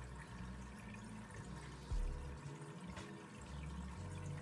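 Water pouring and trickling in an aquarium as someone works at the open top of the tank, with a couple of low thuds about two seconds in and at the end.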